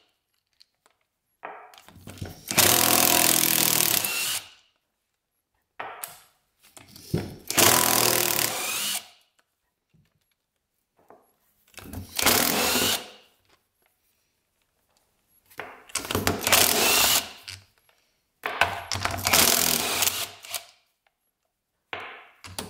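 A handheld power tool run in short bursts of one to three seconds, about six times with pauses between, backing bolts out of an ATV's front differential case.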